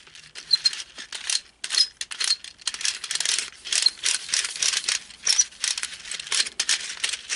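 Hard plastic puzzle pieces clicking and clattering quickly and irregularly as a twisty puzzle is turned by hand.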